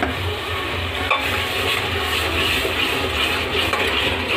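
Freshly added tomato purée frying in the hot oil and spice masala in an aluminium pressure cooker, a steady sizzle, with a steel ladle stirring through it.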